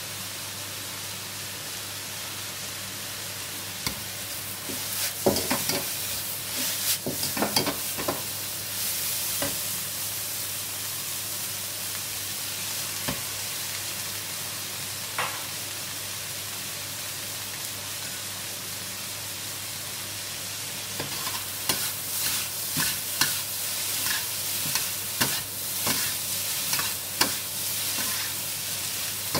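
Shredded cabbage and carrot sizzling in a hot wok, with a metal ladle scraping and knocking against the wok as the stir-fry is stirred. The stirring comes in a spell about five seconds in and again through the last eight seconds.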